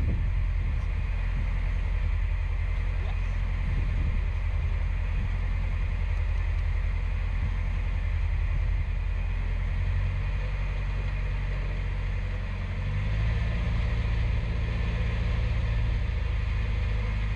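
Narrowboat engine running steadily, a low, even hum; its note shifts a little partway through.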